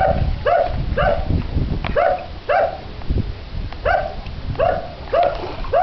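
A dog barking repeatedly, about two short barks a second, over a low rumble.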